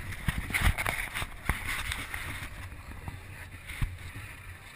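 Kids' roller coaster ride: the car rattling along its track with a few sharp knocks over a low rumble, and wind noise on the camera's microphone.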